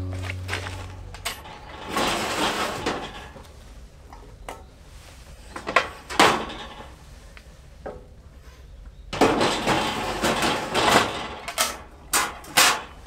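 Background music fading out, then scattered knocks, clunks and clatter of hard objects being handled, with one sharp knock about six seconds in and a busier run of knocks near the end.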